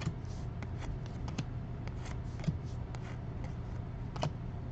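Trading cards being handled and flipped through: soft scattered rustles and light clicks of card stock, with two sharper taps, over a steady low hum.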